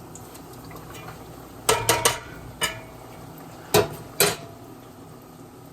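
Kitchen utensils and cookware clinking and clattering: a quick cluster of knocks a little under two seconds in, then single sharp clinks near three and four seconds, as battered chicken tenders are put in to cook.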